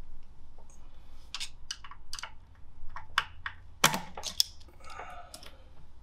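Irregular light clicks and taps of a screwdriver working a mounting screw in a safe door, with one sharper click about four seconds in. The screw is spinning in its hole instead of backing out.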